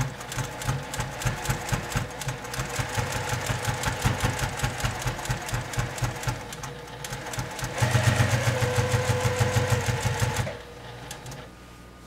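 Domestic electric sewing machine stitching through quilt fabric and batting: a rapid, even ticking of needle strokes over the motor's hum. About two-thirds of the way through it speeds up and gets louder, then it stops shortly before the end.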